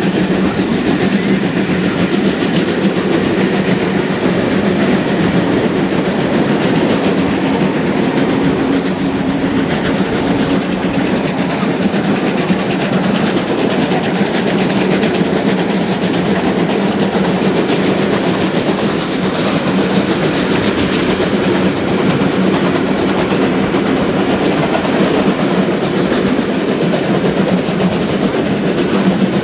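Two steam-hauled passenger trains running side by side on parallel tracks, heard from an open carriage window: a steady, loud rush of wheels on rails and passing air, with a steady hum underneath.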